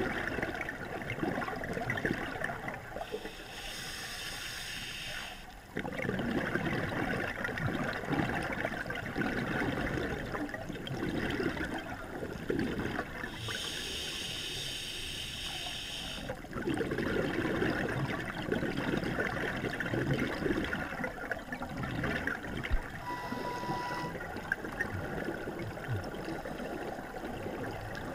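Scuba diver breathing underwater through a regulator: two inhales, about three seconds in and again about ten seconds later, each a high hiss lasting a couple of seconds, with long stretches of bubbling exhaled air between them.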